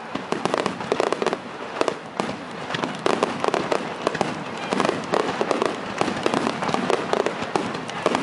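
A rapid barrage of aerial firework shells bursting, a starmine-style salvo of many overlapping bangs each second with no pause.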